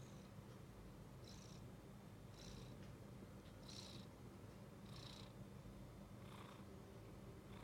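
Domestic cat purring softly, with a faint breath sound about every second and a bit.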